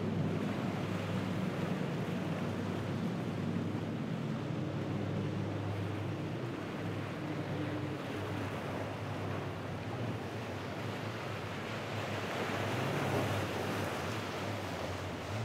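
A go-fast speedboat's engines running with a steady low drone as the boat runs through breaking waves, with the rush of surf and wind over it.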